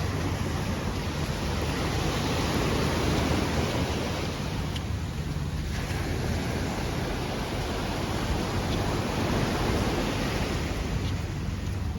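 Steady rushing of wind and sea water while under sail, with wind buffeting the microphone as a low rumble. The rush swells a little louder about three seconds in and again near ten seconds.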